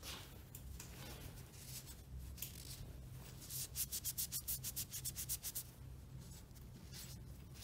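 A cloth rubbing over an old metal greaser as it is wiped clean, with a run of quick back-and-forth strokes, about seven a second, in the middle.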